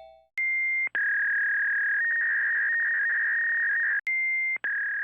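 Outdoor horn loudspeakers of a municipal disaster-prevention radio system sounding a sequence of steady electronic tones over a hiss: a short high tone, then a long lower tone that flickers between two close pitches for about three seconds, then the short high tone and the lower tone again, fading out near the end.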